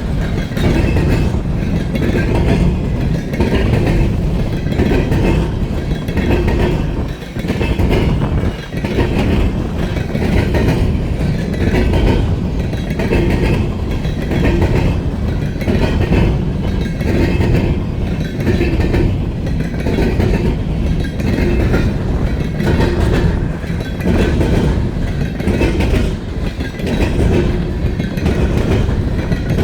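Norfolk Southern freight train's cars rolling past close by, the wheels clattering over the rail joints in a steady, evenly repeating clickety-clack.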